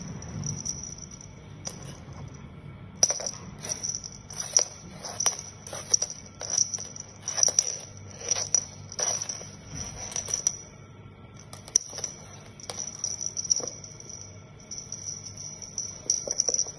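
Beaded cat wand toy rattling and jingling in quick irregular bursts as it is jerked about and batted, with a high ringing that stops and starts and light clicks.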